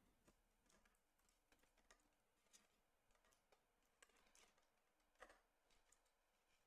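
Near silence, with faint, scattered clicks and light rustles at irregular moments: hook-up wires being pressed down into a hand-wired keyboard's case.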